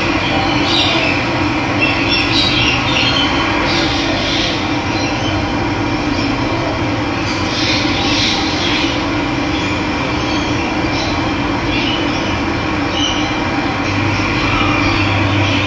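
Steady rush of running water, with wild birds chirping here and there over it.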